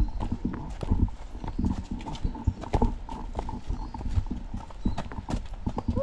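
Footsteps of people walking on a hiking trail: irregular thuds and knocks at uneven spacing.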